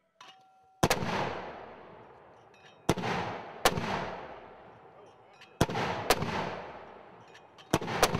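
Mortars firing in rapid succession: seven sharp reports, some in close pairs, each trailed by a long echo that dies away over a second or two.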